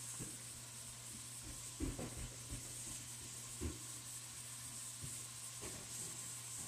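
Diced steak sizzling faintly in a frying pan, with a spatula knocking and scraping against the pan a few times as the meat is stirred.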